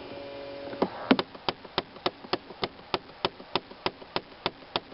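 Faulty HVAC blend door actuator behind the glove box of a 2008 Chevy Impala, knocking under the dash in even, sharp clicks about three times a second, starting about a second in. The noise is the sign of a failed actuator that needs replacing.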